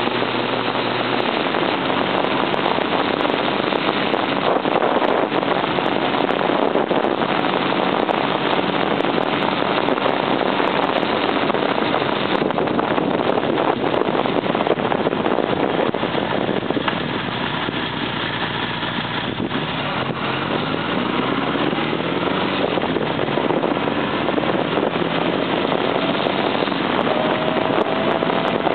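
A 1978 Honda CB750's inline-four engine running on the move, under heavy wind rush on the microphone. The engine pitch eases off about two-thirds through, then climbs again.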